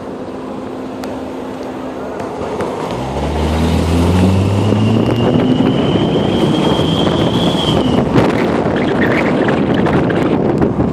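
A 2002 Mitsubishi Lancer OZ's four-cylinder engine revs up under acceleration. A Turbo Whistler XL exhaust whistle on the naturally aspirated car adds a high, fake turbo whistle that climbs slowly for about four seconds and then cuts off suddenly. Wind and road noise follow.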